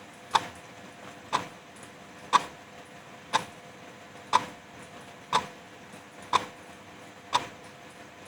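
Wall clock ticking steadily, one sharp tick a second, over a soft even hiss of light drizzle.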